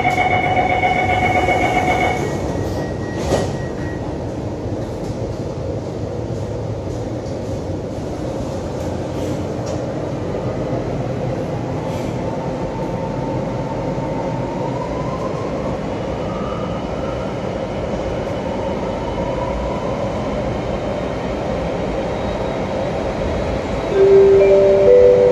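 Interior of an Alstom Metropolis C751C metro train: a steady door-closing warning tone for about two seconds, then a thump as the doors shut. The train pulls away with steady running noise and a traction-motor whine that rises in pitch as it accelerates. Near the end a chime of a few notes sounds, the lead-in to an onboard announcement.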